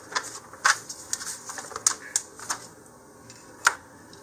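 Irregular light clicks and taps of a hobby knife and ruler on paper, about nine in all, the loudest near the end.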